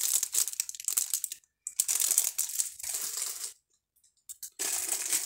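Thin clear plastic wrapping crinkling as it is handled, in uneven stretches of crackle, with a brief pause about three and a half seconds in before the crinkling starts again.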